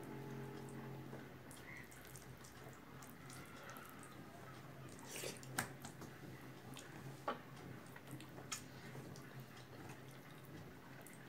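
Faint sounds of eating rice by hand: fingers mixing and squeezing moist rice and vegetables on a plate, with wet mouth sounds and a few sharp clicks around the middle. A steady low hum underlies it.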